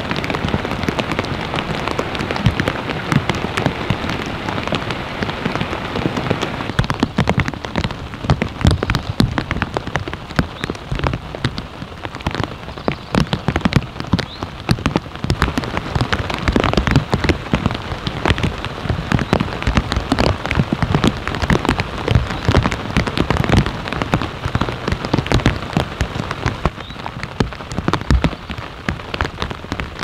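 Steady rain falling, a dense, irregular patter of individual drops.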